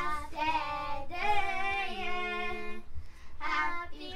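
A high voice singing a song in long held notes, broken into phrases with a short pause about three seconds in: a birthday song, sung badly.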